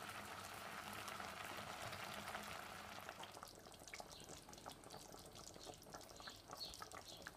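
Faint, steady hiss of a saucepan of water boiling with egusi (marrow-seed) balls in it. About three seconds in it gives way to the quieter sound of a pot of stew simmering, with scattered small pops.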